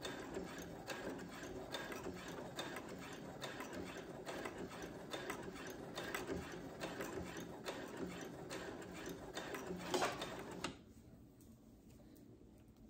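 Brother CS7000X computerized sewing machine stitching a seam at a steady speed, an even run of rapid needle strokes. It stops near the end.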